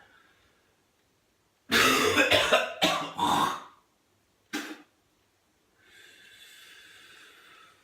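A man with whooping cough (pertussis) in a coughing fit: a rapid run of about four harsh coughs, then one more about a second later. A steady hiss of about two seconds follows near the end.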